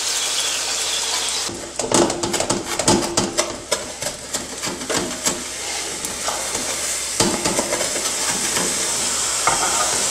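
Künefe sizzling in a hot frying pan just after sugar syrup has been poured over it, with a metal spatula scraping and clicking against the pan as it cuts the künefe into pieces. The clicks come in a quick run early on the second and fourth seconds, then a few more later.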